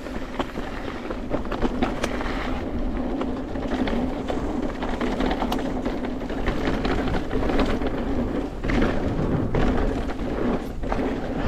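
Mountain bike ride on a rough trail heard through the bike or rider's camera: wind buffeting the microphone over a rumble of tyres, with frequent knocks and rattles from the bike over bumps.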